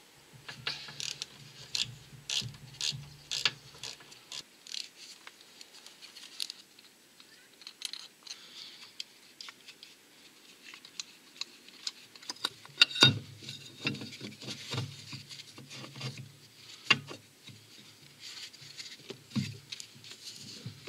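3/8-inch ratchet clicking in irregular runs as bolts on an engine's cylinder head mounting bracket are undone, with clinks of metal on metal.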